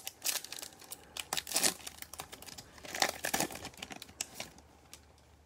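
Foil wrapper of a Panini Mosaic football card pack being torn open and crinkled by hand, in several crackly bursts, loudest about a second and a half in and again about three seconds in.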